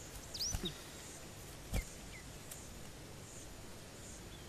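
Quiet woodland background with a few short, high bird chirps scattered through it, and one sharp knock a little under two seconds in.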